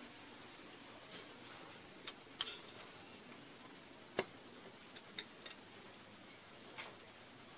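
Metal chopsticks clicking against a bowl of noodles during eating: a scattering of short, sharp taps over a steady faint hiss.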